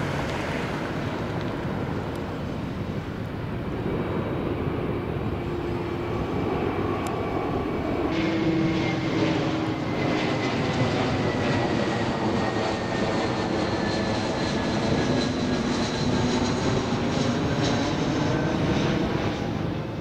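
Jet airliner passing overhead: a steady engine rush with a faint whine that falls slowly in pitch through the middle.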